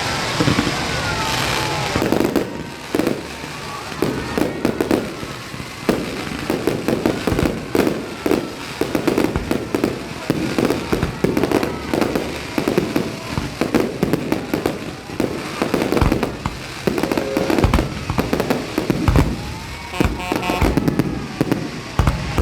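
Fireworks going off in a rapid, continuous barrage of bangs and crackles, with several heavier booms in the last third.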